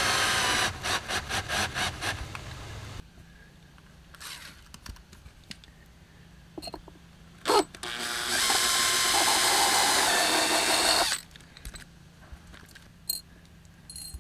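Cordless drill running: a steady run, then short stuttering trigger bursts for about two seconds, then a pause with small clicks. About eight seconds in comes a second steady run of about three seconds, drilling through a metal L bracket into the wooden base of the bench.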